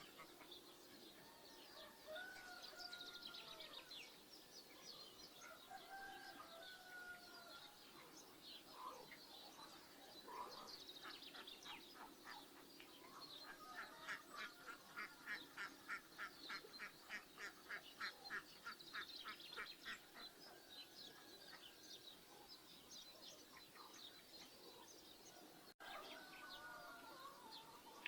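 Faint rural birdsong: small birds chirp throughout while geese give a few honking calls near the start and again near the end. In the middle comes a long run of quick, evenly repeated calls, about three a second, lasting several seconds.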